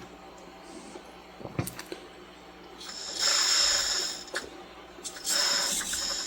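Hydraulic pump of a 1/14 scale Volvo EC160E RC excavator, with a high whine and hiss as the boom is raised. It starts about three seconds in, stops after about a second and a half, and starts again near the end.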